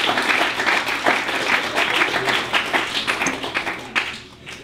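Small audience applauding, the clapping dying away near the end.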